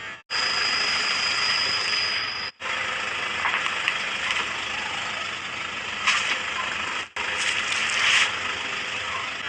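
A car tyre rolling over objects and crushing them, with crackling crunches at a few points, in several short clips cut together.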